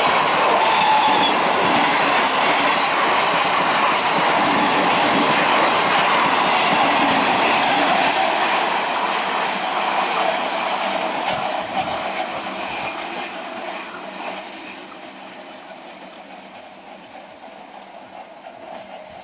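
Conventional Indian Railways EMU local train passing at speed: a loud running rumble with its wheels clattering over the rail joints. The sound fades away from about halfway through as the train recedes.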